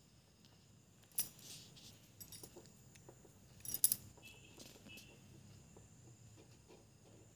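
Faint steady background hum with two brief sharp rustling clicks, about a second in and just under four seconds in, and a few softer ticks between.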